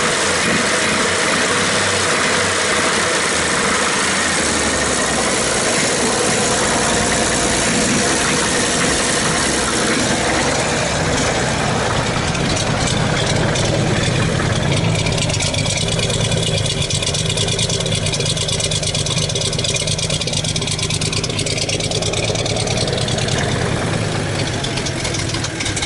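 1933 Chevrolet truck's 194 cubic inch inline-six engine running steadily at idle. It is heard first up close at the open engine bay, then from beside the truck bed, where a fast, even exhaust pulse comes forward.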